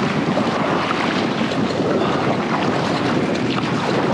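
Wind buffeting the microphone of a kayak-mounted camera over a choppy sea, with waves sloshing and splashing around the kayak; a steady, rough noise.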